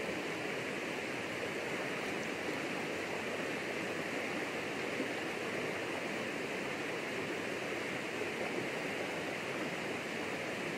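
Steady rushing of a fast river current, an even wash of water noise without separate splashes.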